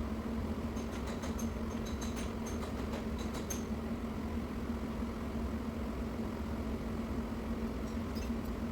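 A steady low machine hum with one constant tone, and a few faint light ticks in the first few seconds.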